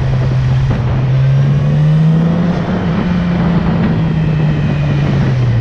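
Yamaha R6 sport bike's inline-four engine running steadily while riding in traffic, its pitch climbing slightly over the first two seconds and then slowly easing off.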